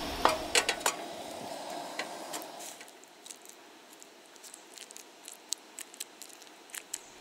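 A few sharp clinks in the first second. Then sparse faint ticks and soft scrapes of a knife dicing avocado flesh in its skin.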